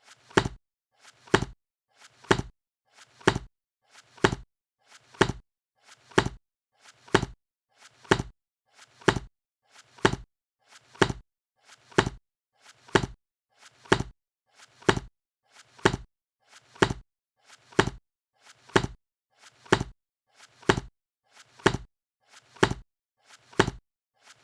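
A book being shut over and over, about once a second: each close is a faint flap of the pages followed by a sharp thud as the covers meet.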